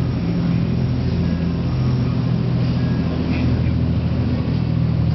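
Catamaran fishing boat's engines running steadily under way: a constant low drone, with a rushing noise of water and wind over it.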